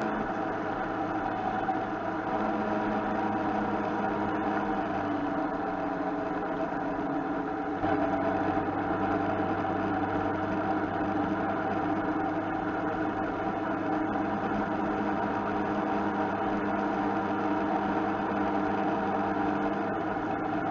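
Motorcycle engine running while riding, picked up by a handlebar-mounted camera. The engine note changes a few times, and the sound gets a little louder about eight seconds in.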